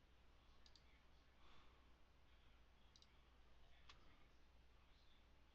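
Faint computer mouse clicks, several quick double clicks a couple of seconds apart, over near-silent room tone with a low hum.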